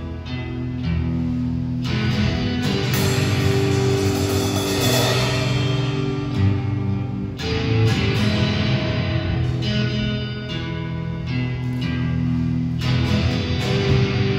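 Live music without singing: an amplified acoustic guitar strummed through chord changes, with a drum kit playing along.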